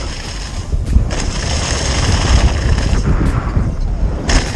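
Downhill mountain bike ridden fast over a leaf-covered dirt trail, heard from a GoPro on the handlebars: heavy wind rumble on the microphone and tyres and frame rattling over the ground. Sharp knocks come about a second in and again near the end as the bike hits bumps.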